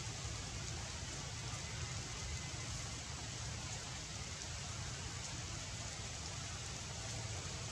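Steady, even outdoor background hiss with a low rumble underneath, with no distinct calls, knocks or voices standing out.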